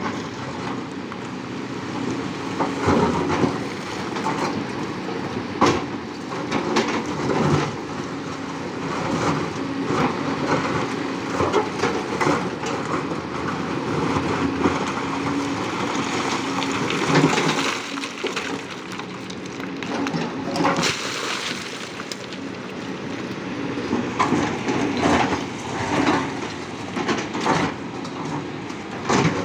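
Large mining excavator working: its engine runs steadily under many irregular metallic clanks and knocks.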